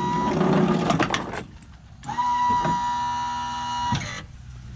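Electric lift motor of a power-dump cargo bed whining steadily, then stopping. About a second of metal clatter and knocks follows as the bed comes up against the hitch extender. The motor then whines again for about two seconds before cutting off.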